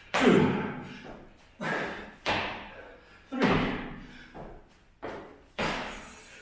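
Thuds of hands and feet landing on a rubber-matted floor during burpees: about six sudden impacts, mostly in pairs, each echoing briefly in the room.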